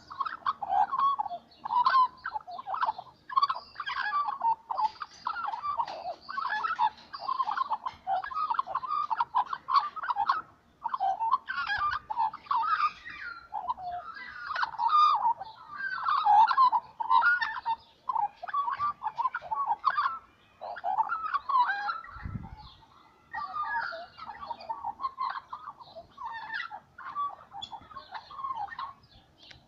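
Australian magpies singing: a continuous warbling song of quick, varied, chortling phrases, broken only by short pauses.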